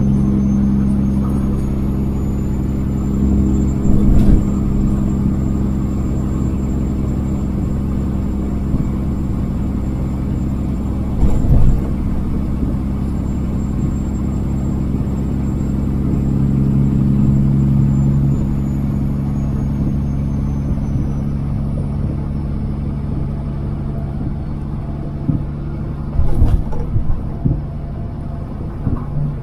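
Kenworth W900 semi truck's diesel engine running steadily at cruising speed, heard from inside the cab, with a faint high whine above it and a few brief thumps about 4, 11 and 26 seconds in.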